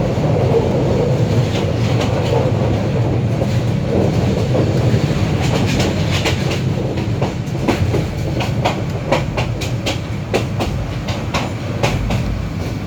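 Train running on the rails: a steady low rumble with rapid clickety-clack of wheels over rail joints, the clacks coming thick and fast from about halfway through.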